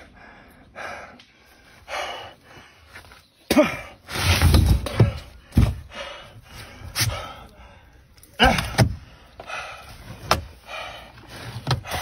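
A large live carp thrashing in a man's arms, giving a series of sharp wet slaps and thumps, the heaviest a cluster about four to five seconds in. Between them come the man's short gasps and grunts of effort.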